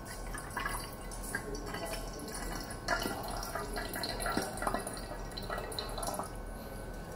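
Cold water dripping and trickling in irregular drops from a small pouring vessel onto a color-changing tumbler, the cold making the tumbler's base change color.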